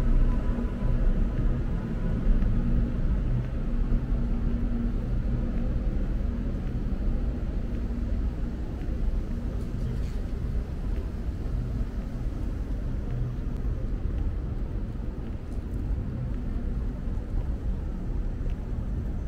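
Steady low rumble of city street traffic, with the low hum of a vehicle engine running.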